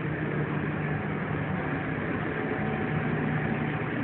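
Steady low hum of a running vehicle engine, heard from inside the vehicle.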